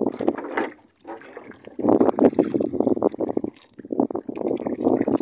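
Sea water splashing against the hull of a small wooden outrigger boat in uneven surges, with short quiet gaps between them.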